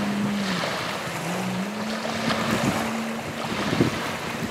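Jet ski engine droning across the water; its pitch dips for about a second near the start and then rises back. Wind buffets the microphone throughout.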